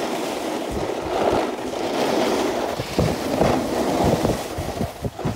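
Wind buffeting a phone's microphone over the scrape and chatter of snowboards riding fast over packed snow, with many small bumps and knocks from about a second in.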